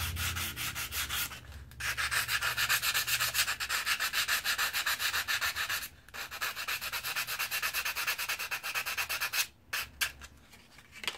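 Sandpaper, 180 grit, rubbed briskly back and forth by hand over the rusty steel of an old drawknife blade to loosen the crusty rust. It makes a quick scratchy rasp of about five strokes a second, with brief breaks about two and six seconds in, and stops shortly before the end.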